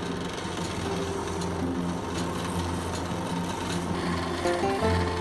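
Small electric bench belt sander running steadily while a rattan bow stave is pressed against the moving abrasive belt: a motor hum under a rough, hissing sanding noise.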